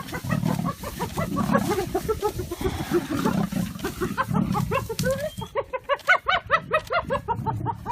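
A fast series of short pitched animal calls, each rising and falling, about four a second, over a rough low rumble, with a slight lull about halfway through.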